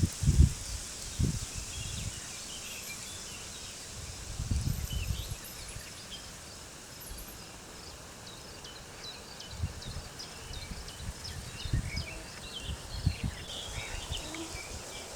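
Small birds chirping and twittering over a steady high hiss. Low gusts of wind rumble in the first second, again around four to five seconds in, and from about ten to thirteen seconds.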